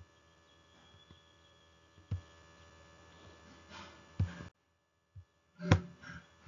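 Faint room noise broken by a few soft, low knocks, then a brief drop to dead silence and a sharp click about three-quarters of the way in, the loudest sound.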